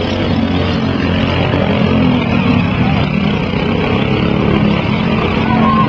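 Small riding lawn mower engines running steadily, a dense, continuous hum.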